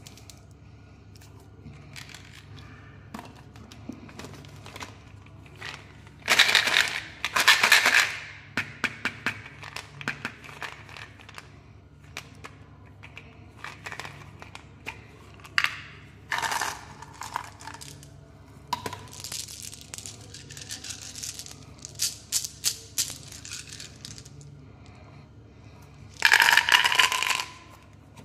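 Plastic sweet packaging handled by hand: crinkling wrappers and light plastic clicks and rattles, with loud bursts of handling about six seconds in and again near the end, when a plastic Mentos gum bottle is being opened.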